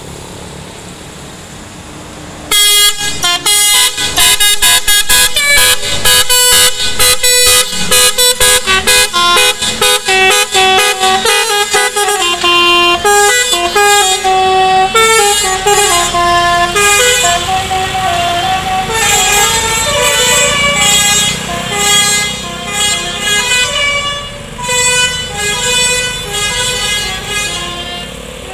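Tourist bus's Basuri telolet horn playing a melody. It starts about two seconds in with loud runs of fast staccato notes, then moves on to longer, stepped notes of the tune.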